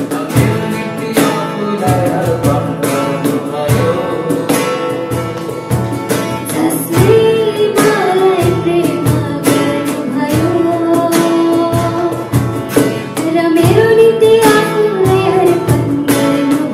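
A woman singing a Nepali Christian worship song, accompanied by a strummed acoustic guitar.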